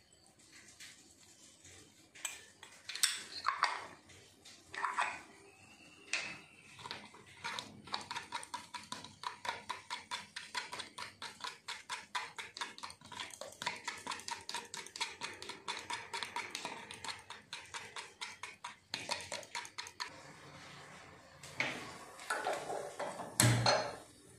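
A metal fork beating eggs in a plastic cup: a long run of quick, even clicks, about five a second, as the fork strikes the cup. A few louder knocks of kitchenware come near the end.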